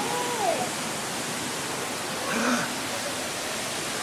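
Steady rushing of a nearby waterfall, an even wash of noise. A short falling voice near the start and a faint voice about two and a half seconds in.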